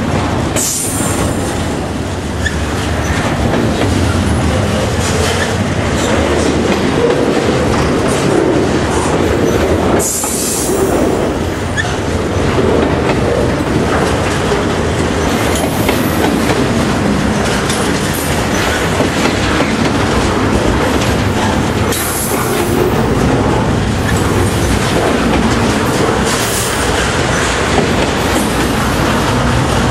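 Double-stack intermodal well cars rolling slowly past on jointed track: steady wheel-and-rail rumble and clatter, with a few brief high squeals from the wheels.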